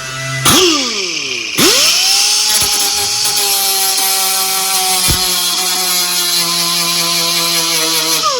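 Electric grinder briefly blipped on, then switched on about a second and a half in, grinding the cut-off welded pull studs flush on the van's steel body panel with a steady whine and a hissing grind. It is switched off near the end and winds down.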